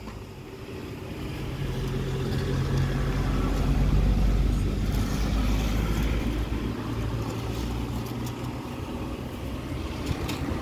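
A motor vehicle's engine running nearby, a low steady hum that grows louder over the first four seconds and then eases off a little.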